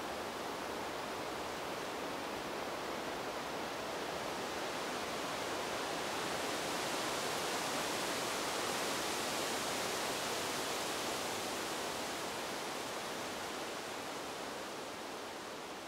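Wind sound effect added as sound design: a steady rushing hiss that swells a little in the middle and begins to fade near the end.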